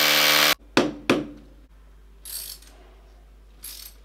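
Corded electric drill running into the wall, then stopping about half a second in. Shortly after come two sharp knocks in quick succession, and later two brief hissing sounds.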